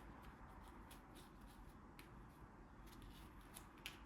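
Near silence, with faint clicks and rubbing from a small brake light switch being handled and wiped clean of grease.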